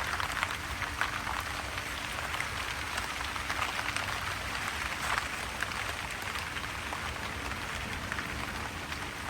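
Steady rain falling, many separate drops ticking.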